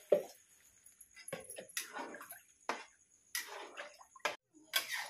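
A knock near the start, then a spatula scraping and clicking against a steel kadhai in irregular strokes as watery semolina is stirred.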